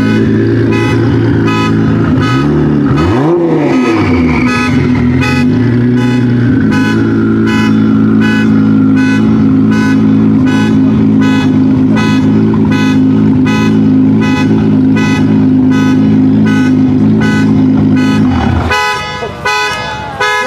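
Nissan GT-R engine idling steadily, with one quick rev up and back down about three seconds in, then cutting off near the end. A regular beat, about two a second, runs throughout.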